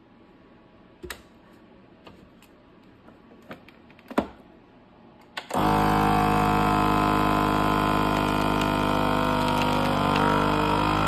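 A few sharp clicks and knocks, then about halfway through a vacuum sealer's pump motor starts and runs steadily, drawing the air out of the bag around a steak. Its pitch shifts slightly near the end as the bag pulls tight.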